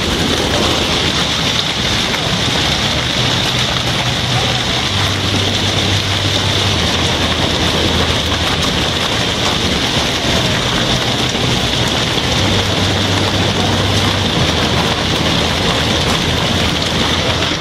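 Hailstorm: a dense, steady downpour of hailstones striking outdoor surfaces and window glass.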